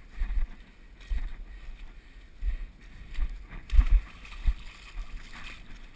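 Footsteps in wet mud, with a heavy thud and squelch about once a second, the loudest about four seconds in.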